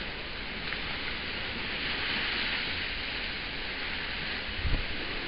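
Steady rushing hiss of wind and water streaming past a sailboat under way under spinnaker, with low wind buffeting on the microphone. A brief low thump comes near the end.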